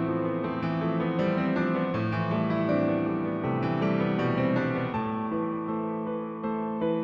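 Piano music, single notes and chords struck one after another and left to ring.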